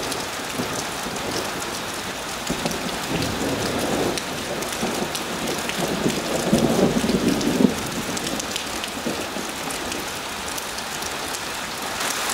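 Steady rain falling, a dense hiss full of fine ticks of drops striking, with a low rumble that swells up in the middle and then fades.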